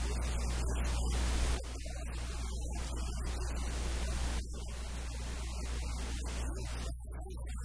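Steady static hiss over a low electrical hum, with no clear speech. The hiss drops slightly in level about a second and a half in and again about four and a half seconds in.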